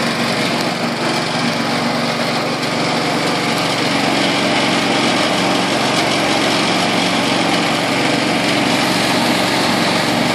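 The small gasoline engine of a 6.5 hp high-pressure water pump running steadily under load, pumping water out through a 1-inch fire hose.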